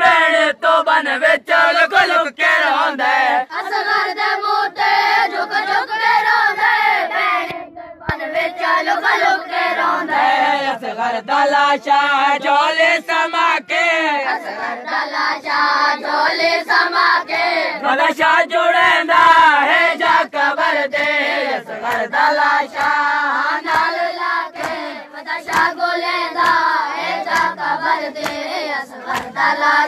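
A group of men and boys chanting a nauha together, with repeated hand slaps of matam chest-beating running through the chant.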